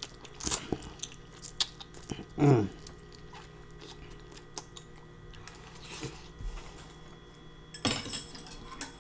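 Close-miked eating of Korean black bean spicy noodles: wet slurping, smacking and chewing, with sharp mouth clicks over the first three seconds, then softer chewing. A brief noisy burst comes near the end.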